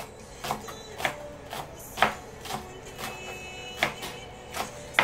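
Chef's knife slicing green onions on a plastic cutting board: sharp knocks of the blade striking the board, about two a second at an uneven pace.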